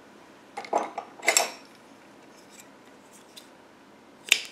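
Fiskars scissors handled and snipping through yarn: a few short handling noises about a second in, then a sharp snip near the end.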